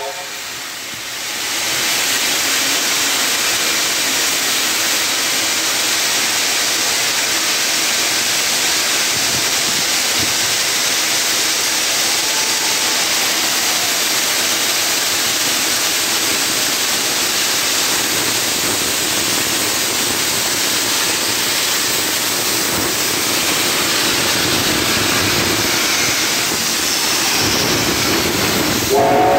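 Loud, steady hiss of steam venting from NSWGR 35 class steam locomotive 3526, starting about a second and a half in.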